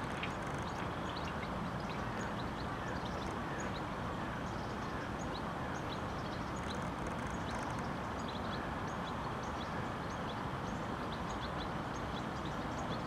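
Steady outdoor background noise with many short, faint high-pitched chirps or ticks scattered throughout.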